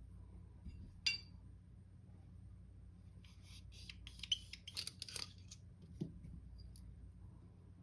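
Faint handling of pistol-cleaning gear: a sharp metal clink about a second in, then a couple of seconds of scratchy rubbing and small clicks, and a soft knock near the end. These are the sounds of a cleaning rod and patches being worked through a pistol barrel.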